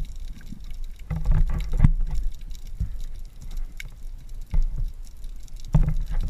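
Muffled underwater noise picked up by a submerged camera: a low rumble with scattered clicks and knocks. It swells with a steady low hum about a second in and again near the end.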